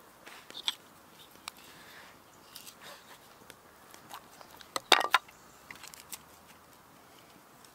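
Light clicks and taps of hands handling a raw lamb shoulder, a knife and garlic cloves on a wooden board, as garlic and rosemary are pushed into cuts in the meat. A louder cluster of sharp clicks and knocks comes about five seconds in.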